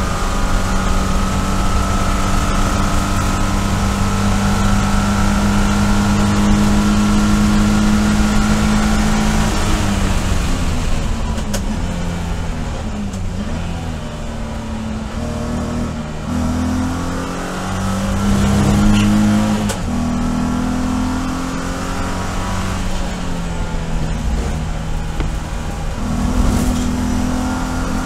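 BMW E46 race car's 3.0-litre straight-six heard from inside the stripped cockpit. It runs at high revs down a straight, then drops in pitch about ten seconds in as the car brakes and downshifts for a corner. It then climbs again under full throttle, with an upshift partway through.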